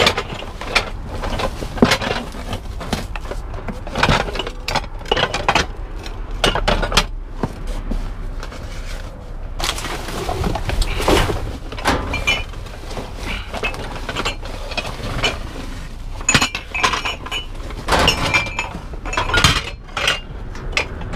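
Plastic garbage bags rustling and loose trash clattering as bags are shifted around inside a dumpster, with irregular knocks and clinks throughout.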